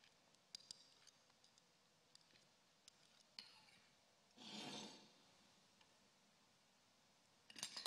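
Near silence with a few faint clicks of metal spoons shaping a quenelle of trout tartare. A brief soft rubbing sound comes a little past halfway, and light clinks follow near the end as the quenelle is set on the plate.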